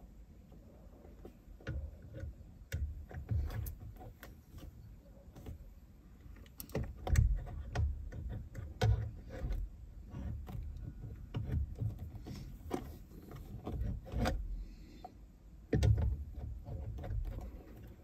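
Irregular plastic clicks, knocks and low thumps of hands working at a car's steering wheel hub, fitting the airbag module and its wiring connectors, with the loudest knocks about seven, nine and sixteen seconds in.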